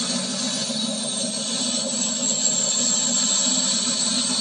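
British Rail Class 40 diesel locomotive pulling away, its English Electric V16 engine running with a low steady note and a high whistle over it, the turbocharger whistle these locomotives are known for.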